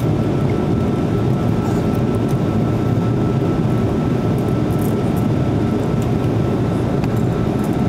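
Airbus A330-200 cabin noise in flight: the steady roar of the twin turbofan engines and rushing air heard from a seat over the wing, with a faint steady high whine above it.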